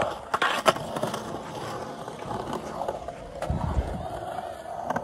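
Skateboard wheels rolling over a smooth concrete bowl, a steady rumble broken by a few sharp clacks about half a second in and a low thud about three and a half seconds in.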